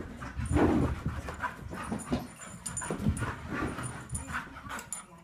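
A dog making excited noises in short, irregular bursts, with panting between them.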